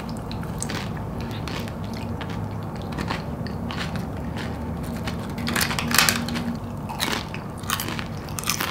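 Close-up chewing of a mouthful of loaded tortilla-chip nachos, with scattered crisp crunches, the loudest about six seconds in.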